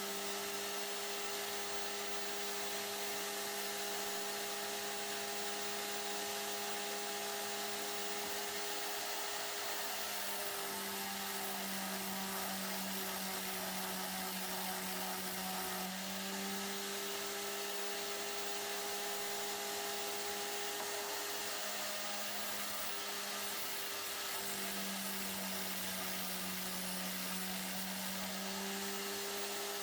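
Electric power tool motor running steadily with an even hum, its pitch shifting slightly a few times as the load changes.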